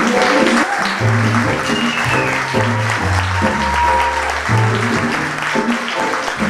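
Live instrumental music from a piano, bass and percussion trio, the bass moving in steps through low notes from about a second in, with audience applause over it.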